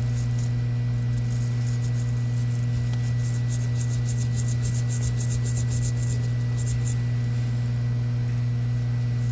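Rapid scratching strokes of a wire brush scrubbing rust out of the joint of small steel needle-nose pliers, pausing briefly near the end. Under it runs a steady low hum.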